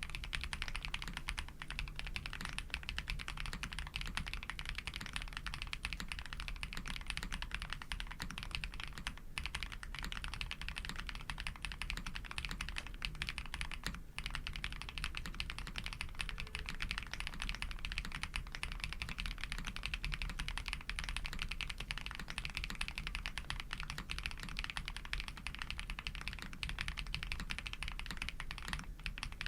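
Fast continuous typing on a custom Tiger Lite 80 mechanical keyboard with lubed Pado v2 switches, a polycarbonate plate and GMK keycaps: a dense stream of key clicks, with short pauses about nine and fourteen seconds in.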